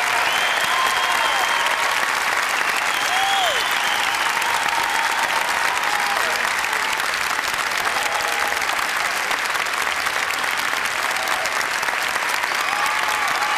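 Audience applauding: steady, dense clapping with a few voices calling out above it.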